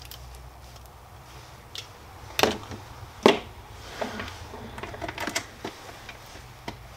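A few sharp clicks and taps of small parts and test leads being handled on a workbench, the two loudest about two and a half and three and a quarter seconds in.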